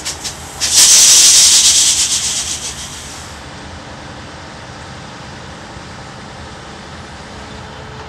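A loud hiss starting just under a second in, lasting about two and a half seconds with a fine fluttering texture and trailing off, followed by steady low background noise.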